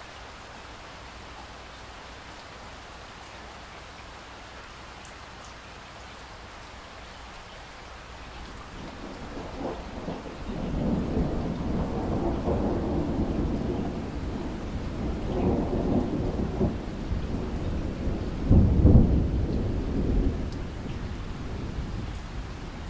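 Steady rain falling, joined about nine seconds in by a long roll of thunder that swells, peaks in a loud clap about three-quarters of the way through, then rumbles away.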